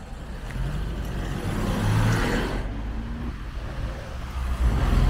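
Cars driving past close by on a town street, engines and tyres on the road; one goes by about two seconds in and another draws near at the end.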